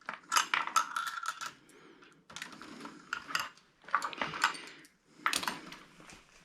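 Small metal parts clinking and rattling in four short bursts of clicks, as sockets and loose hardware are rummaged through.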